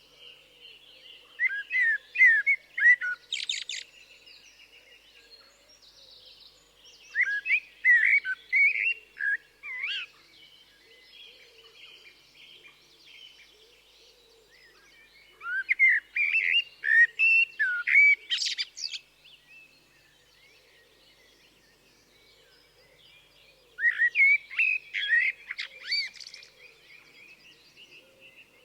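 Common blackbird singing: four loud, fluty warbled phrases several seconds apart, each ending in a brief high, squeaky flourish. Fainter calls of other birds sound between the phrases.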